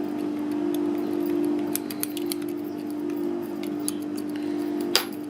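Light metallic clicks and scrapes of a lock pick being rocked inside a Blackspur padlock's pin-tumbler keyway, with a sharper click about five seconds in. A steady low hum runs underneath.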